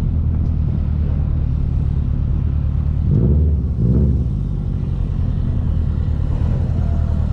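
Car engine running with a steady low exhaust rumble, revved twice in quick succession about three seconds in.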